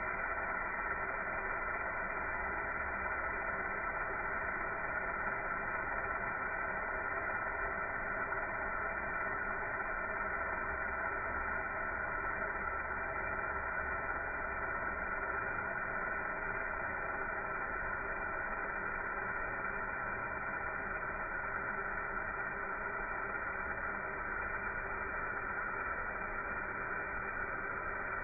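Laser welding machine running: a steady hum and hiss with a few constant whining tones that never change, sounding dull and narrow like a radio.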